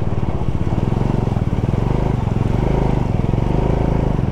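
Bajaj Dominar 400's single-cylinder engine running steadily under load as the motorcycle climbs a steep, rough off-road stretch.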